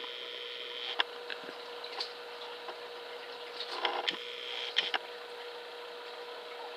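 A few light knocks and taps, with a short cluster about four seconds in, over a steady faint hum.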